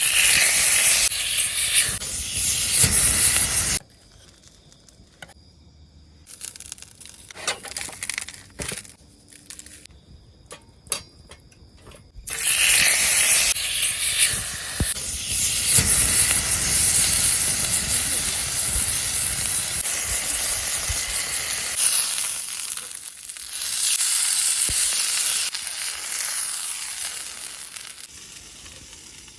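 Thick steak sizzling over a campfire, a loud steady hiss. It drops away for several seconds after the first few, leaving only a few sharp clicks and knocks, then the sizzling comes back and slowly fades near the end.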